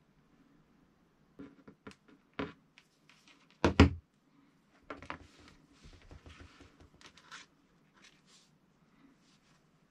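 Hands handling tools and parts on a workbench: scattered clicks and knocks, the loudest a sharp double knock about four seconds in, followed by a few seconds of scraping and rustling.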